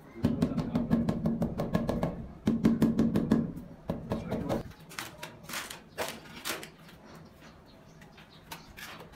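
A mallet tapping rapidly on a freshly laid ceramic wall tile to bed it into the cement mortar, in two quick runs over the first four and a half seconds. A few separate scrapes and knocks follow.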